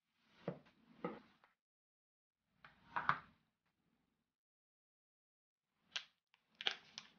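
Apple Pencil 2 cardboard packaging being opened by hand: the sleeve sliding off, the lid pulled from the tray and the pencil lifted out, heard as short scrapes and taps in three brief bursts.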